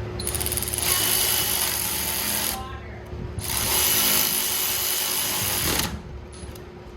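A power tool runs in two bursts of about two and a half seconds each, with a short pause between them, while driving a fastener on a go-kart's front suspension.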